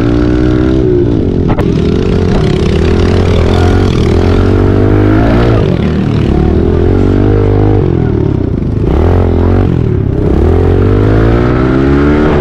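Several pit bikes racing, their engines revving up and dropping off again and again as the riders accelerate and back off around the track.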